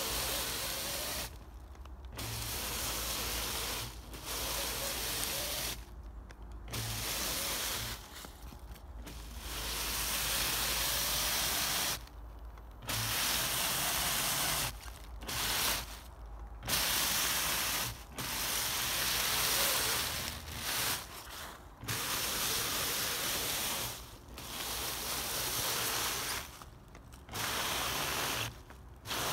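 Traxxas TRX-4 radio-controlled crawler's motor and gears whirring in repeated throttle bursts, its tyres spinning and churning in dry leaves and snow as it sits stuck. Each burst lasts a second to a few seconds, with short quiet gaps between.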